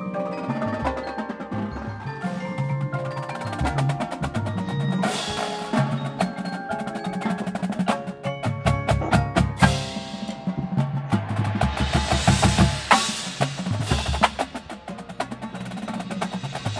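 Drum corps percussion section playing together: front ensemble marimbas and other mallet keyboards carry pitched lines over the battery's snare drums, tenors and pitched bass drums. The bass drums play runs of low notes, heaviest in the second half.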